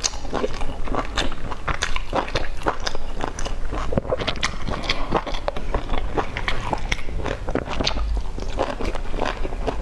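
A person chewing and biting into sauce-dipped dumplings: a dense, continuous stream of short mouth clicks and smacks.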